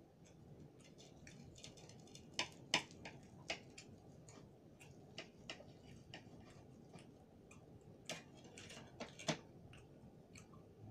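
Crispy pork belly crackling as a knife cuts through the skin, with cutlery clicking against the plate: irregular sharp crackles and clicks, the strongest about two and a half seconds in and again around eight to nine seconds in.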